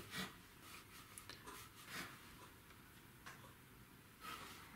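A few faint brush strokes of a wet round watercolor brush across textured cold-press paper, over near silence.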